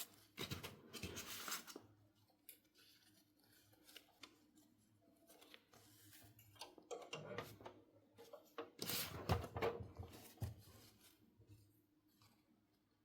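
Handling of toy packaging and small plastic pieces, with rustling and light clicks in two spells, one in the first couple of seconds and a louder one from about seven to ten seconds in.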